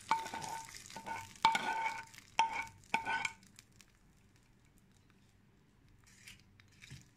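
Pan knocked against the rim of a stainless steel bowl five times in about three seconds, each knock ringing briefly like a struck bell, as the last of the hot tempering is shaken into the sambar. A few faint clinks of a ladle come near the end.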